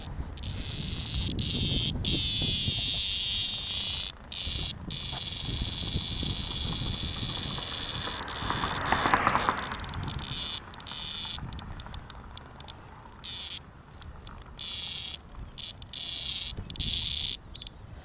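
Cicadas buzzing in a steady high-pitched drone that cuts out briefly now and then, with a louder, lower buzz about nine seconds in.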